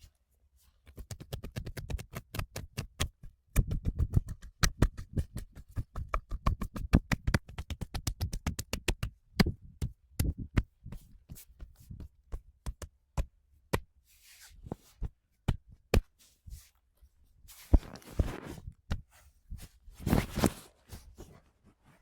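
Hands striking a body in quick massage percussion (tapotement), rapid rhythmic slaps with a dull thud, about four or five a second. They thin out to scattered single strikes, and brief rubbing swishes of hands on skin follow near the end.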